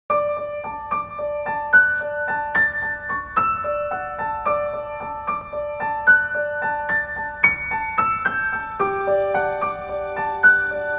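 Background piano music: a light melody of evenly spaced notes, about three a second, with a lower note joining near the end.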